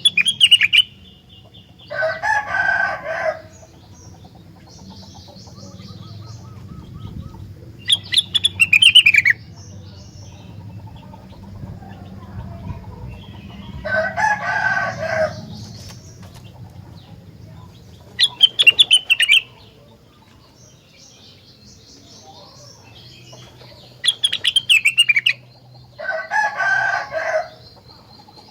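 Rengganis songbird singing in repeated phrases: short, rapid, high-pitched chattering bursts alternating with a lower, fuller warbled phrase about a second long, returning every several seconds.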